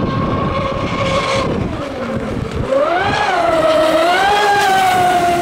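HPR 135 Golddigger RC racing catamaran at full speed on twin brushless electric motors, giving a high motor-and-propeller whine over the rush of spray. The whine holds steady, dips in pitch about two seconds in, then rises again and wavers, louder from about three seconds in.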